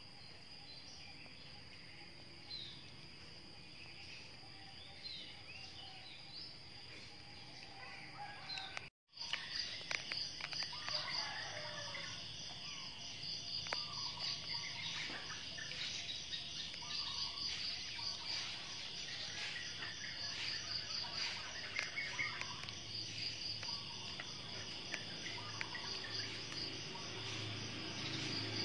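Outdoor ambience of insects chirping in a steady, fast-pulsing high trill, with short bird chirps over it in the first third. The sound drops out for a split second about a third of the way in, and the insect trill is louder after that.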